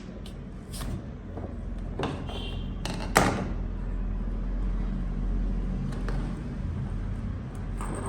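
A few short clicks and knocks from handling, the loudest about three seconds in, over a steady low hum.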